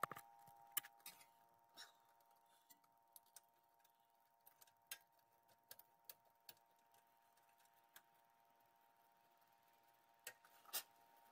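Faint, sparse metallic clicks and taps as a front brake caliper is handled and fitted back over its pads and rotor, over a faint steady hum.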